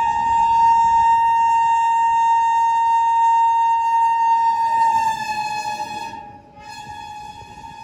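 Train horn sounding one long, steady blast. It weakens about five seconds in and carries on more quietly near the end.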